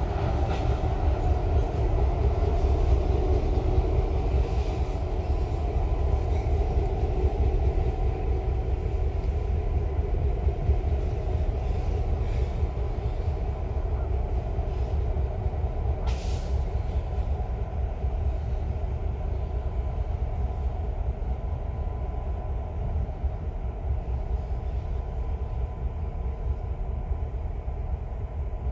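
Train running past, a continuous low rumble with a steady droning hum over it, slowly fading. A short sharp click about halfway through.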